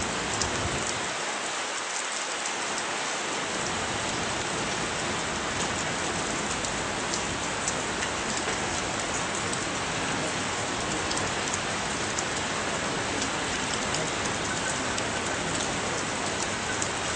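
Heavy rain falling steadily: a dense even hiss, with many small sharp drop ticks close by.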